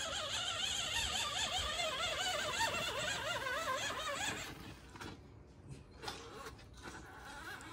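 Electric motor and gears of a radio-controlled monster truck whining, the pitch wavering up and down rapidly as the throttle is worked. The whine stops about four and a half seconds in, leaving a fainter sound.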